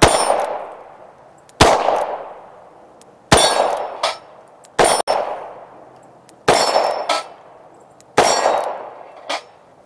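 Six shots from a Rock Island Armory AL9.0 9mm revolver, spaced about one and a half seconds apart, each with a short echo. Fainter sharp knocks follow some of the shots.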